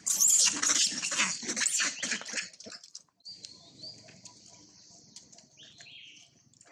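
Long-tailed macaques screaming in a scuffle: a loud burst of shrill, rapid calls for about three seconds, then it drops away to fainter, scattered calls.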